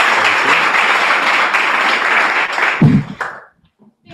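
Audience applauding with many hands clapping, dying away about three seconds in. A single loud, low thump comes just before the clapping ends.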